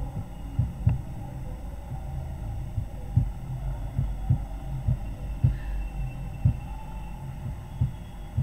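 About a dozen dull, low thumps at irregular intervals over a steady low hum: handling and click noise from the computer being operated while switching windows.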